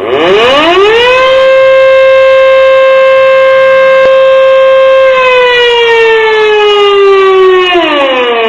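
Civil defense-style siren starting abruptly and winding up to a steady wail within about a second, holding that pitch for about four seconds, then slowly winding down, with a quicker drop in pitch near the end. A single click is heard about four seconds in.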